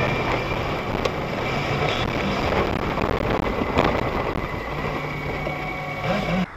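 Steady engine and road noise inside a moving vehicle's cabin, recorded by the dashcam, with a few faint clicks; a low hum comes up in the second half.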